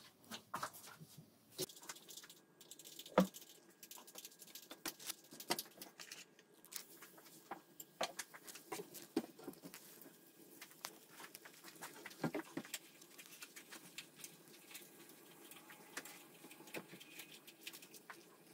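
Thin lettu batter sizzling and crackling in a hot non-stick frying pan, a steady run of small irregular pops. A sharper knock about three seconds in.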